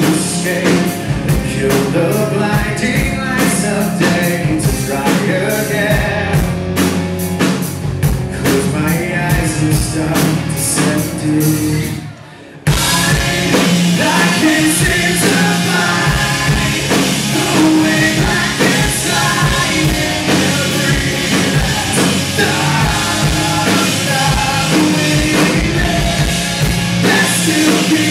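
Live rock band playing loudly, with electric guitars, a drum kit and a male lead vocalist singing. About twelve seconds in, the music cuts out for half a second and then comes straight back in.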